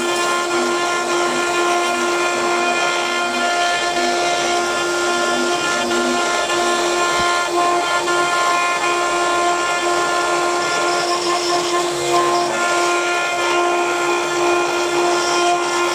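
CNC wood-turning lathe running: a steady machine whine over a constant hiss.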